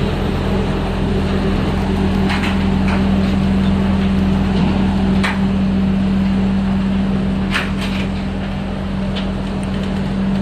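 Diesel engine of a tracked rotary drilling rig running steadily with a constant low hum as the rig crawls up steel ramps onto a low-bed trailer, with about five sharp knocks from the tracks on the ramps.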